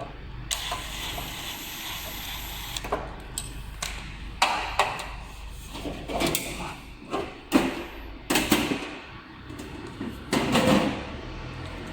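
A series of irregular knocks, thuds and short scraping or rustling noises, over a faint steady low hum.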